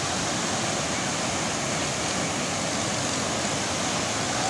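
Rain-swollen stream in flood, its water rushing in a steady, unbroken roar.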